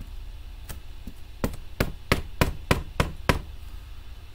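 An ink pad being dabbed against a mounted rubber stamp to ink it: one tap, then a quick run of about seven sharp taps, roughly three a second.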